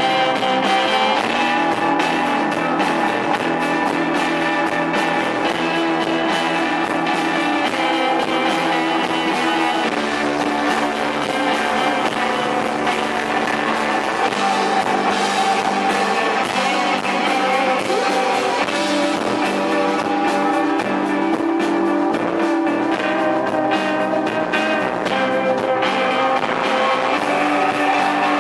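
Live post-punk rock band playing: electric guitars ringing out held, layered notes over steady drums and cymbals.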